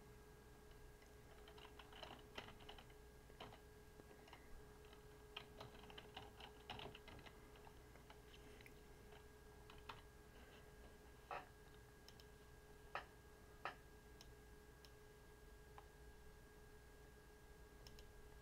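Faint typing on a computer keyboard: a quick run of keystrokes over the first several seconds, then a few single mouse clicks spaced a second or more apart. A faint steady hum sits underneath.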